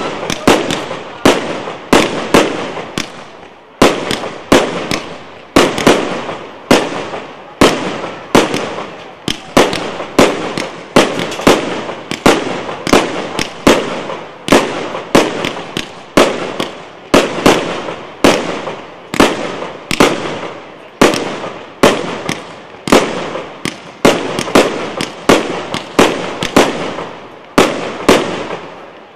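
Aerial fireworks firing in rapid succession, with sharp bangs about twice a second, each fading off quickly before the next one.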